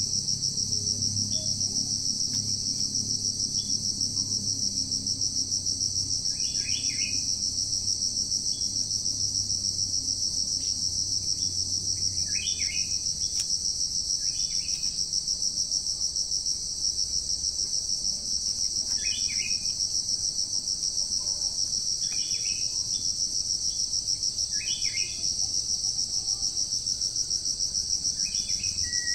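Steady, shrill drone of forest insects, unbroken throughout. About eight short bird calls come every few seconds over it.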